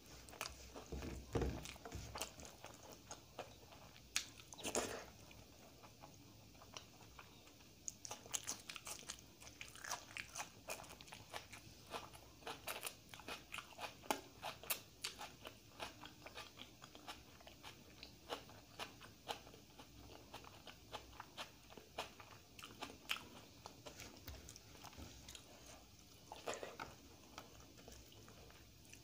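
Close-miked eating sounds: a person chewing and crunching fried mirchi bajji (batter-fried chilli fritter) and dal-soaked rice, with many quick wet mouth clicks and crunches, thickest through the middle.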